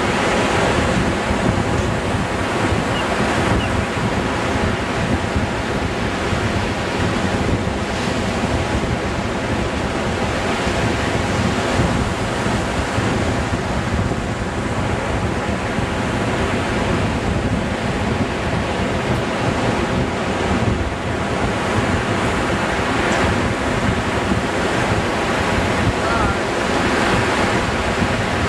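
Gulf of Mexico surf breaking on a beach, with wind buffeting the camcorder microphone in a steady rushing noise.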